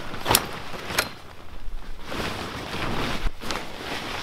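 A Coleman instant tent's frame being raised: three sharp clicks as its legs lock into place, two in the first second and one more near the end, with the tent fabric rustling between them.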